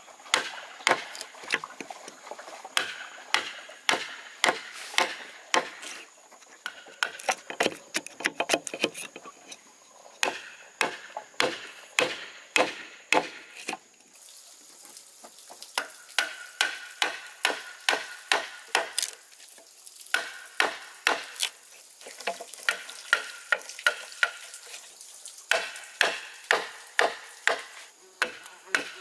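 Repeated sharp knocks of hand-tool work, about two to three strikes a second in runs with short pauses, over a faint steady high whine.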